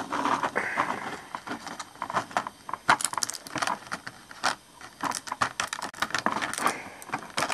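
Small plastic action-figure hand accessories clicking and rattling as they are rummaged through by hand, in quick irregular clatters.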